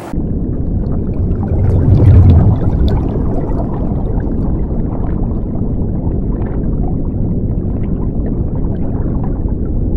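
Underwater sound effect for an animated logo intro: a deep rumble with faint bubbling, swelling to its loudest about two seconds in, then steady until it cuts off abruptly at the end.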